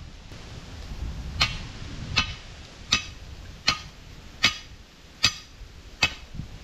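Hammer blows struck at a steady pace, seven in all, about three-quarters of a second apart. Each blow has a short metallic ring, like a hammer driving a nail.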